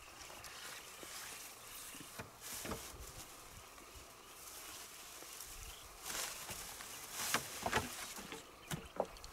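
Footsteps and rustling through dry grass and brush, faint and uneven, with a few short scuffs and knocks as a man climbs down a rocky bank.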